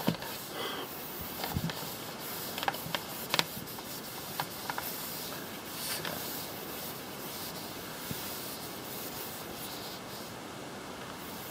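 Hand wiping and scrubbing a dirty shelf surface, a soft rubbing with a handful of sharp knocks and clicks in the first half, then a steady faint hiss.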